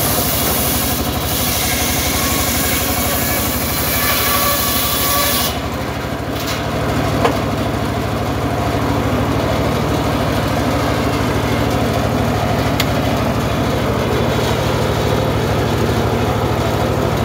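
Engine-driven homemade circular saw bench running steadily, its blade ripping lengthwise through a wooden plank with a loud hiss for about the first five seconds. The hiss then drops away and the engine and blade run on unloaded, with a couple of sharp ticks.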